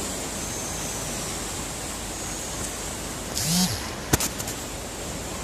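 Steady rushing noise of surf washing in and out at a seashore cave. A little past the middle comes a short louder rush, then a sharp click followed by a few faint clicks.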